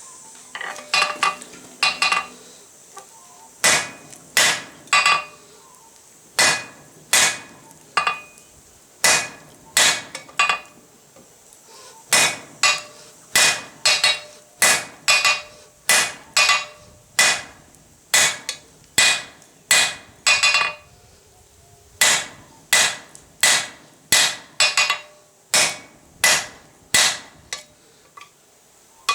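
Hand hammer striking hot 16mm square steel bar on an anvil, blows about a second apart in runs with short pauses, each strike ringing. This is the bar being drawn out and lengthened to forge a leaf.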